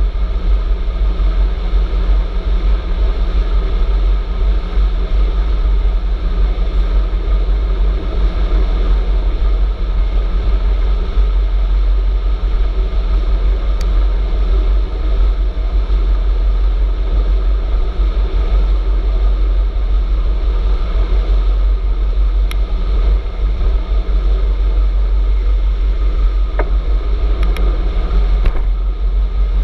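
Wind rushing over the microphone of a camera on an electric bicycle moving at speed, a loud, steady low rumble with road noise underneath.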